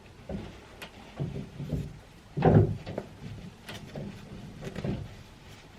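Handling noise as a racing pigeon is held and turned in the hands: soft bumps, rustles and a few clicks, the loudest bump about two and a half seconds in.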